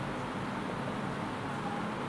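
Steady background hiss with a low rumble, even throughout, with no distinct events.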